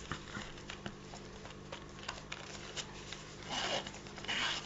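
An earphone storage case being handled: light clicks and rubbing, then two short rasping swishes near the end.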